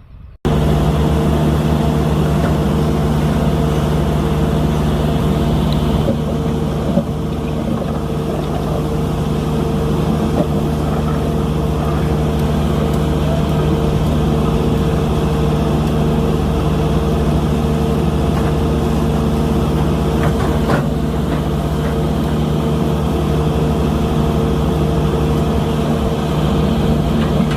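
Heavy construction machinery engine running steadily under load, cutting in abruptly, with a few faint knocks over it.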